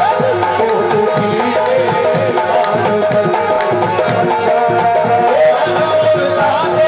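Qawwali instrumental passage: tabla playing a fast, busy rhythm under a held and winding harmonium melody.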